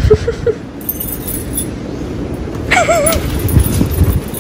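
Dog whining at a door, one short wavering high whine about three seconds in, over keys jangling and rattling in a padlock.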